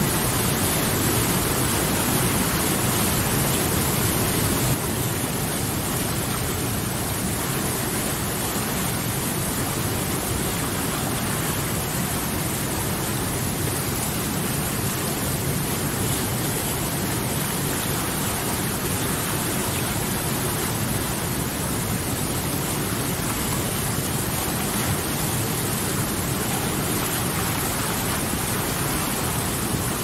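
Fast mountain river water rushing over boulders in whitewater rapids: a steady, dense rush of water, easing very slightly about five seconds in.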